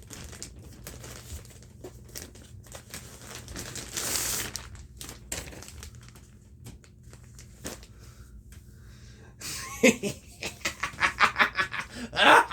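Plastic mailer packaging crinkling and tearing as a parcel is opened by hand, with scattered rustles and a longer tear about four seconds in. Near the end comes a short, quick run of vocal sounds.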